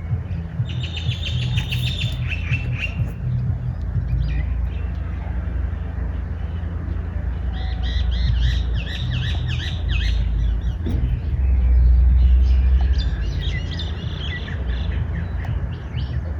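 Small birds chirping in three bursts of quick high chirps, over a steady low rumble that swells briefly near the end.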